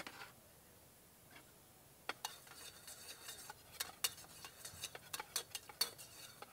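Faint clicking and clinking of small hard objects: a single click at the start, then a quick, irregular run of them from about two seconds in.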